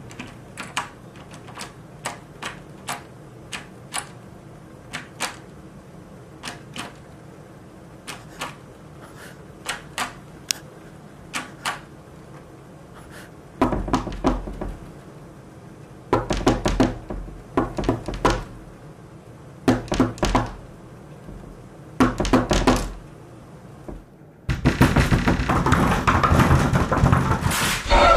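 Knocking on a door: sharp single knocks at uneven gaps, then louder bouts of rapid pounding about a second long each. Near the end, a loud continuous burst of noise.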